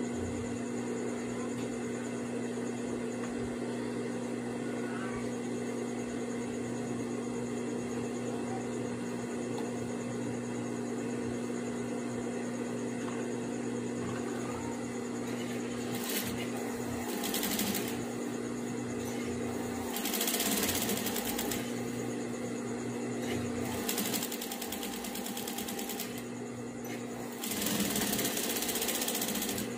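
Single-needle sewing machine stitching fabric: a steady motor hum, with several short, louder runs of stitching in the second half, each a second or two long.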